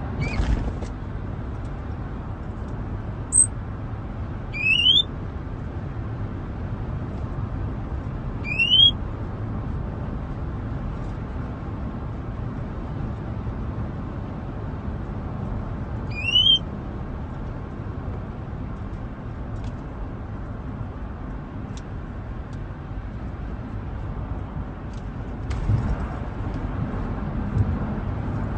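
Caged songbird giving a few short rising whistles, several seconds apart, over the steady low rumble of a car cabin.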